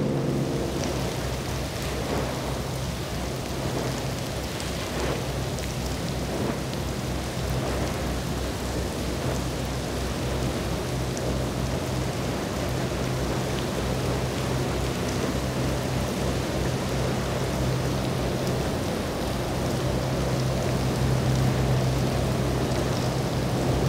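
Steady hiss of heavy rain and wind, with a low, steady drone of a boat engine underneath.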